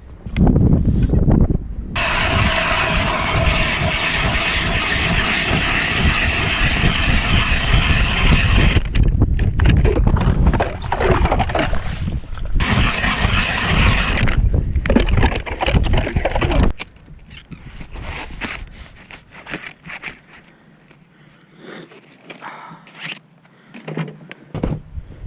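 Manual ice auger cutting a hole through pond ice: a steady grinding scrape of the blades in the ice, then rougher uneven bursts, stopping about 17 seconds in. Quieter scrapes and knocks follow.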